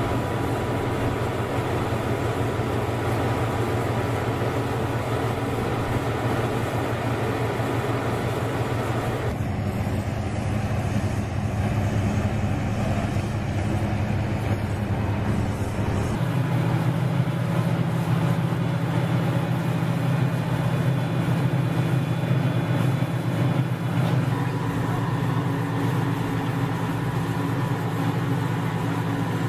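Heavy construction machinery running steadily with a low engine drone. The sound changes abruptly twice, about nine and sixteen seconds in.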